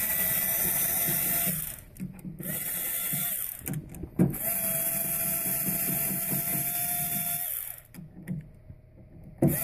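Cordless electric screwdriver with a T10 Torx bit whining in three bursts as it backs out the coupler screws, the last and longest winding down in pitch as it stops. A sharp click sounds between the second and third bursts.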